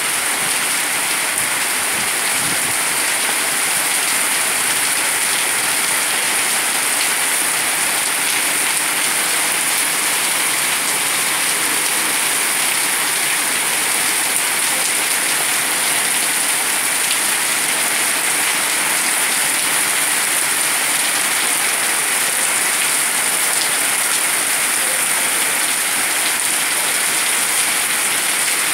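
Steady downpour of rain, a dense even hiss of drops striking wet pavement and paving stones.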